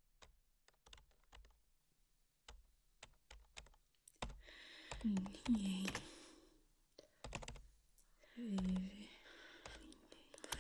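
Typing on a beige computer keyboard, keystrokes clicking in short irregular runs. From about four seconds in, breathy voice sounds come in over the keystrokes and are the loudest thing heard.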